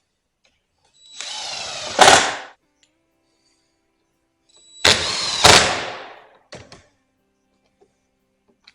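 A power tool run in two short bursts of about a second and a half each, a few seconds apart, each ending in a louder peak before dying away, followed by a couple of light knocks.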